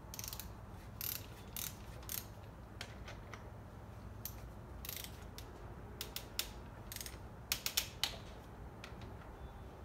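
Ratchet head of a torque wrench clicking in short, uneven runs as the front fork pinch bolts are tightened toward 228 inch-pounds.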